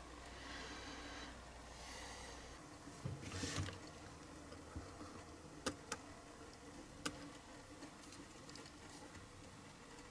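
Faint handling sounds of a small diecast model car and its plastic parts on a cutting mat: soft rustling early on, then a few light, sharp clicks.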